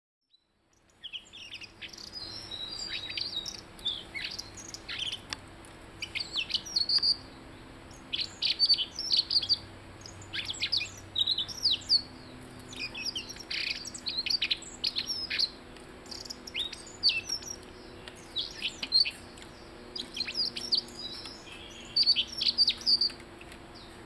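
Caged blue-headed robin singing: phrases of high, quick chirps and twitters that come in bursts every second or two, starting about a second in.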